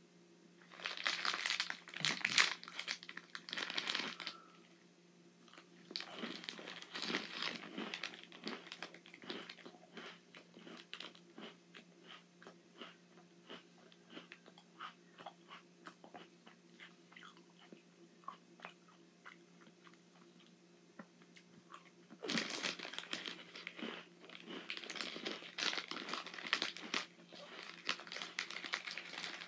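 Plastic wrapper of an Oreo snack pack crinkling as it is opened in the first few seconds, then an Oreo cookie crunched and chewed, with many short crisp crunches for about fifteen seconds. The wrapper crinkles again for the last several seconds.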